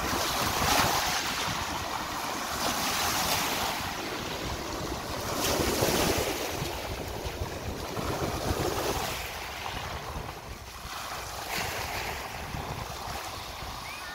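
Small waves breaking and washing up over a shingle beach, a surge swelling every two to three seconds, with wind rumbling on the microphone.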